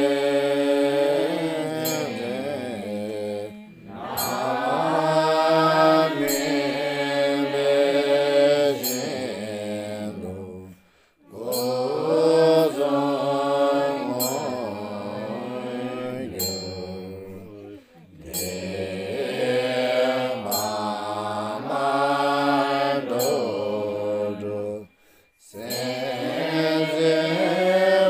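A melodic Buddhist mantra chant: a sung, sustained vocal line over a low steady drone, repeating in phrases of about seven seconds, each ending in a short pause.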